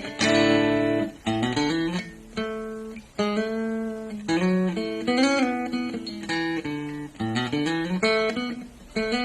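Guitar played through a Vox Pathfinder 10 practice amplifier: plucked chords and single-note phrases, some notes sliding in pitch.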